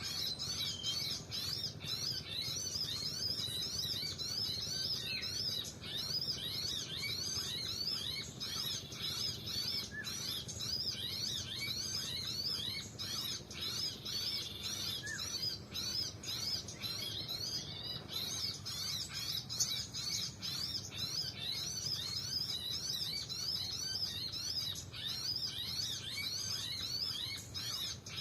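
Small birds chirping in a rapid, unbroken series of repeated high, sweeping notes.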